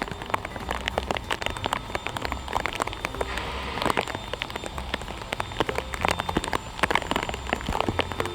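Rain pattering: a dense, irregular crackle of many small drops striking a surface.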